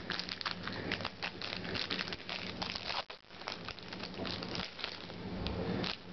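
Trading cards being handled and flicked through by hand: a quick run of light clicks and rustles as card edges slide and snap against each other, with a short pause about three seconds in.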